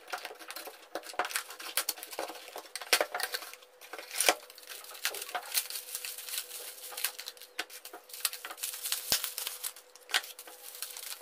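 Cardboard shipping box being cut open with scissors and unpacked by hand: packing tape tearing, cardboard flaps and boxes knocking, and plastic bubble wrap crinkling, in a stream of irregular clicks and rustles.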